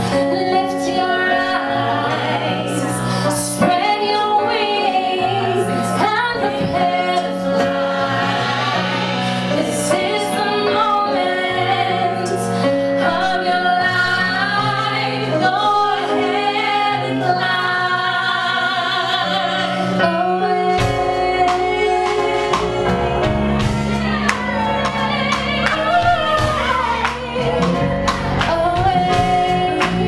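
Live neo-soul band performance: a woman sings lead over keyboard, electric bass and drums, with backing singers. About two-thirds of the way through, a heavy low bass comes in under the voice.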